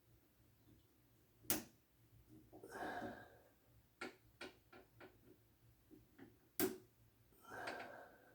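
Needle-nose pliers prying at the small retaining clips on a refrigerator ice-maker water valve's line fittings: two sharp clicks, one about a second and a half in and a louder one near the end, with a run of lighter ticks between and two longer rustles of handling.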